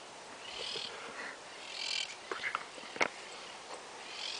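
Two short high-pitched animal calls about a second apart, then a sharp click about three seconds in.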